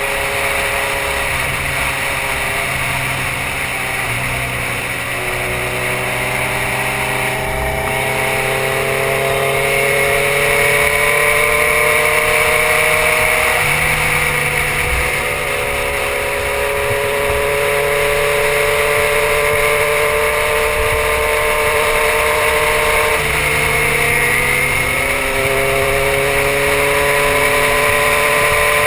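2006 Suzuki GSX-R1000's inline-four engine running under way at road speed, with wind rush on the microphone. The engine pitch climbs and falls slowly, with two sudden shifts, one a little before halfway and one about four-fifths through.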